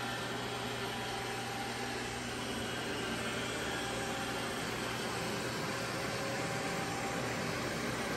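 Several robot vacuum cleaners running at once, a steady whirring drone of their motors that holds even throughout.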